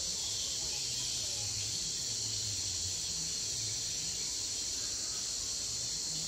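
Steady high-pitched insect chorus, a continuous shrill drone that keeps the same level throughout.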